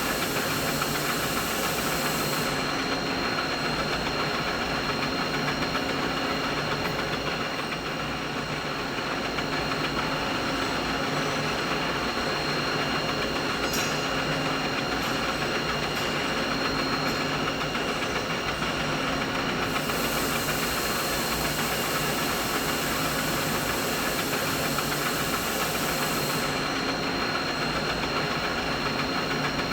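Steady machinery hum: a continuous low rumble and mechanical noise with a thin, unchanging whine high above it. A high hiss on top drops away a couple of seconds in, comes back about twenty seconds in, and drops away again near the end.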